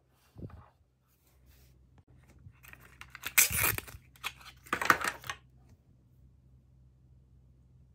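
A soft knock, then a small printed paper wrapper from a Mini Brands capsule crinkling and tearing as it is pulled open, loudest in two bursts.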